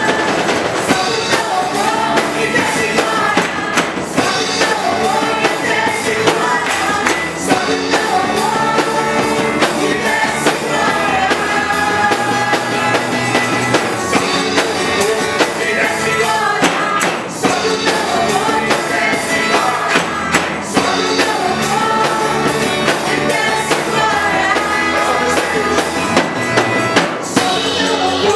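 Praise-and-worship (louvor) song: voices singing over a band with drums and percussion, continuous and loud.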